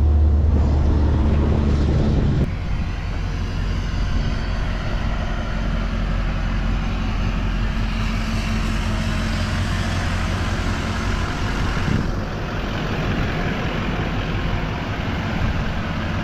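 Kodiak truck's diesel engine running: a steady low hum that changes suddenly about two and a half seconds in to a broader, even rush of running noise.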